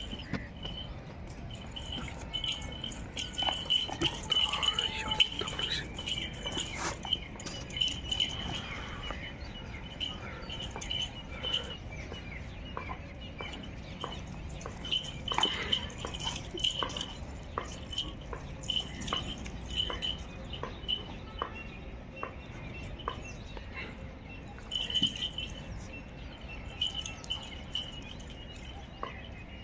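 A Belgian Malinois and a man playing on a tiled floor: scattered taps, clicks and scuffs of paws and shoes, with birds chirping high and repeatedly over a low rumble of wind.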